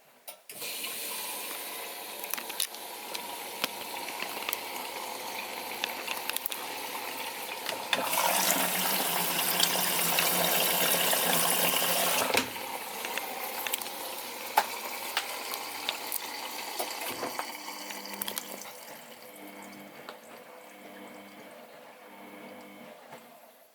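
Miele Novotronic W921 washing machine taking in water: a rush of filling water that starts suddenly, grows louder for about four seconds midway, then runs on more quietly and stops at the end.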